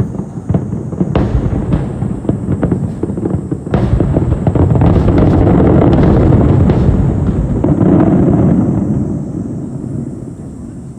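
Fireworks bursting, with many sharp crackles and bangs. About four seconds in they merge into a dense, loud, continuous rumble of many shells at once, which dies away near the end.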